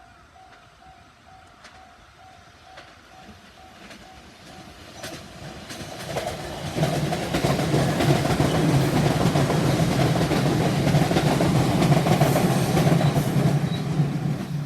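A level-crossing warning bell rings in a steady repeating ding, about twice a second, as a train approaches on the JR Tōkaidō Line. From about five seconds in come sharp clacks, and from about seven seconds the train passes close by with loud wheel-on-rail noise and a low drone that drown out the bell. The bell is heard again at the very end.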